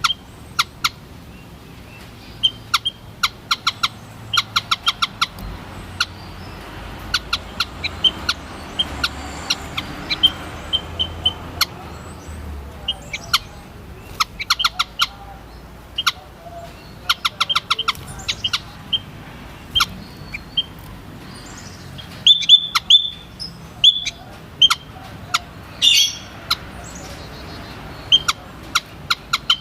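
White-headed munia calling: quick runs of short, sharp chirps, broken by a few longer high notes a little past two-thirds of the way through.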